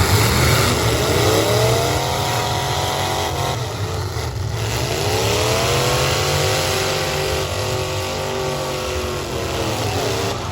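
Full-size stock V8 derby car engines running with a heavy low rumble. Engines rev up twice, each time rising in pitch and then holding.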